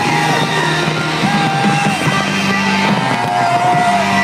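Loud music from a fireworks show's sound system, with long held melodic notes over a steady low accompaniment.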